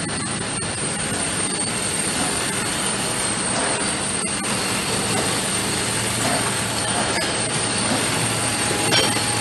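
Slat-chain bottle conveyors and their electric drive motors running on a juice bottling line, a steady dense mechanical noise with a low hum.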